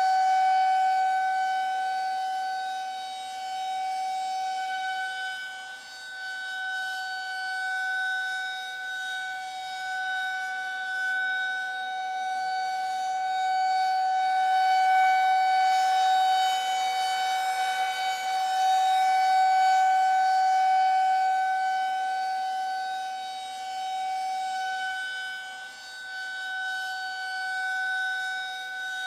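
Air-raid siren sounding one steady, unbroken tone, its loudness slowly swelling and fading. This is the air-raid warning signal calling people to take shelter at once.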